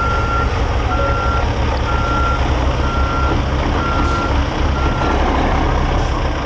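A reversing alarm beeping about once a second, six times, stopping about five seconds in, over the low rumble of semi truck diesel engines idling.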